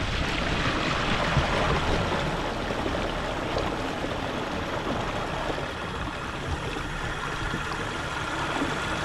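Steady rush and splash of water off the hull and wake of a Hobie Pro Angler 14 kayak driven by a Torqeedo electric motor at about 5 mph.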